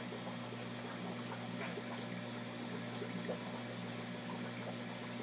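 Aquarium filter pump running with a steady low hum, and water trickling.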